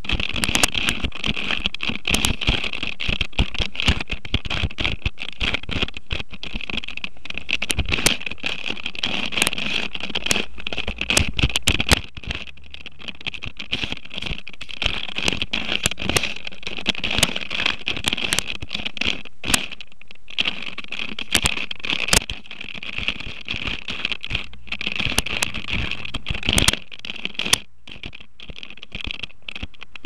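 A Rubik's cube being handled and turned by fingers right against the microphone of a camera mounted on it: a rapid, irregular clatter of plastic clicks, scrapes and rubbing, over a steady high-pitched hiss.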